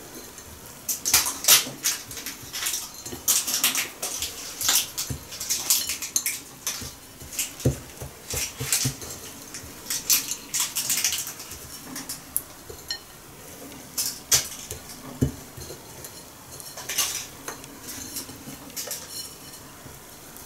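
Hands rolling sticky date-paste candy balls in crushed nuts on a ceramic plate. The crumbs scrape and rustle against the plate in short, irregular strokes, with a couple of light knocks on the plate.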